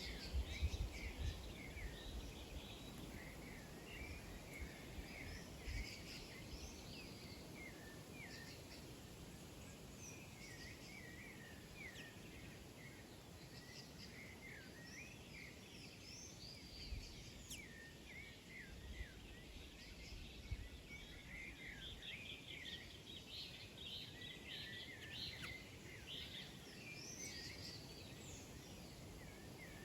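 Many small birds chirping at once, a continuous flurry of short, high, overlapping calls, as at a feeding spot.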